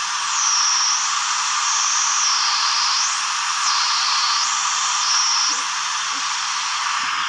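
27 MHz superregenerative receiver hissing loudly and steadily, the typical super-regen hiss, with a high whistle that slides down and back up several times as the receiver is tuned.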